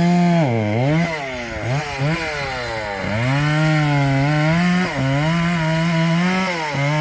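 Two-stroke chainsaw running at high speed while cutting a poplar trunk. The engine speed dips and recovers several times in the first three seconds, then runs mostly steady with short dips near the end.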